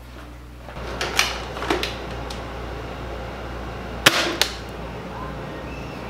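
A couple of light clicks, then a sharp shot about four seconds in with a smaller snap right after: a small gun fired at a fly. A steady hum runs underneath.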